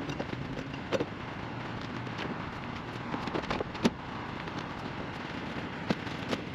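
Scattered sharp knocks and clicks, the loudest about four seconds in, over a steady background hiss.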